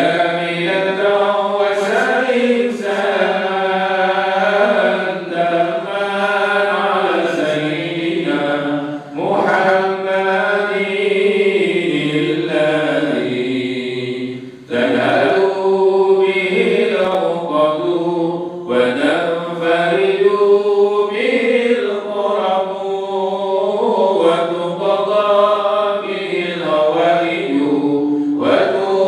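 A man reciting the Quran over a microphone in a melodic chanted style, holding long gliding phrases. He breaks briefly for breath about 9 and 15 seconds in.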